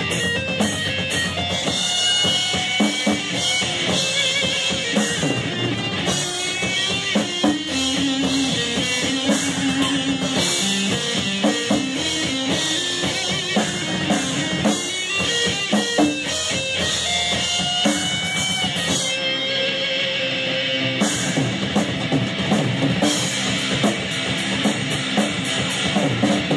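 Heavy metal band playing an instrumental passage: electric guitars over a full drum kit, no vocals.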